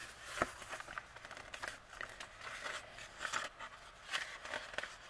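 Paper catalog pages rustling and crinkling as they are turned and pressed flat by hand, in a string of short, irregular rustles.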